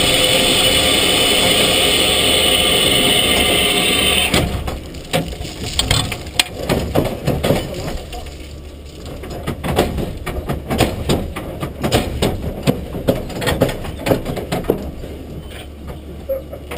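Standing 2-10-0 steam locomotive SZ 33 037 venting steam with a loud steady hiss that cuts off suddenly about four seconds in. Irregular clanks and knocks follow.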